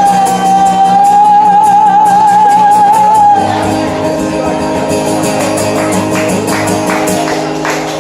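Live band closing a song: a woman singer holds one long high note with vibrato over the band for about three seconds, then the instruments ring on with a steady beat of sharp percussion hits until the song stops near the end.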